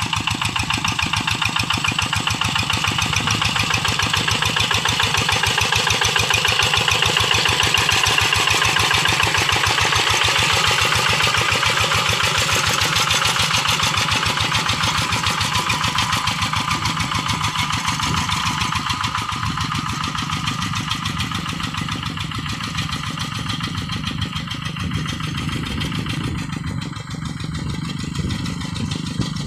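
Quick G1000 two-wheel hand tractor's single-cylinder Kubota diesel engine running steadily under plowing load in a rice paddy, a continuous rapid diesel chug. It is loudest around the middle and slowly fades towards the end.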